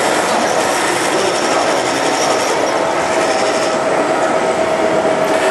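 Lionel model steam locomotive running along its track close by: a steady mechanical rattle of wheels on rail, with a steady tone growing stronger about halfway through.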